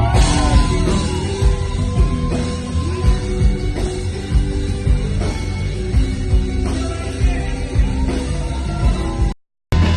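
Pop-rock band music with drums and a steady beat, played loud. It cuts out for a split second near the end.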